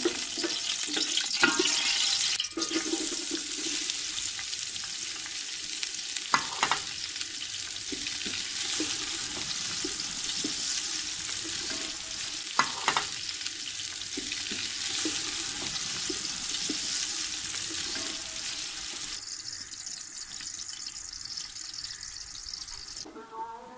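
Ghee sizzling in a large aluminium pot with sliced onions frying in it, a steady hiss. A wooden spatula scrapes and knocks against the pot a few times. The sizzling cuts off just before the end.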